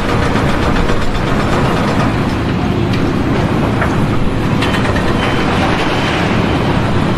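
Heavy machinery running with a steady, loud rumble, with a few sharp clanks over it.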